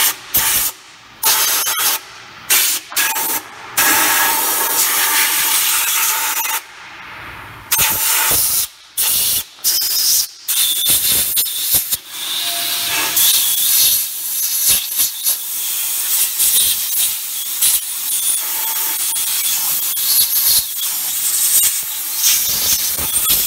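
Compressed air hissing from a pneumatic air blow gun at the rear differential. It comes in several short blasts, then one long near-continuous blast from about halfway through.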